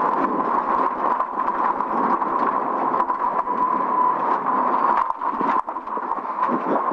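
Rally car's engine running hard at high revs, heard from inside the cabin, with gravel pinging and rattling against the underbody. The sound dips briefly about five and a half seconds in.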